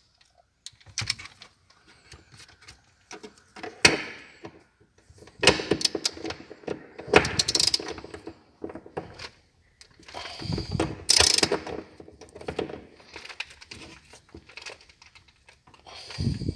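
Hand socket ratchet clicking in runs of rapid strokes as it loosens a seat-belt buckle anchor bolt, with a few single metal knocks between.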